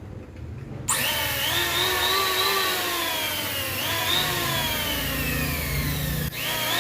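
Handheld power tool motor starting abruptly about a second in with a whining hiss. Its pitch slowly sags, then jumps back up twice.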